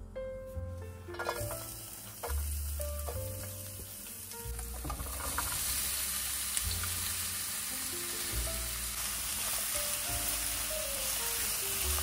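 Diced bell peppers and onion frying in hot oil in a non-stick pan: a steady sizzle that grows louder about five seconds in as the vegetables go into the oil, with a spatula stirring them near the end.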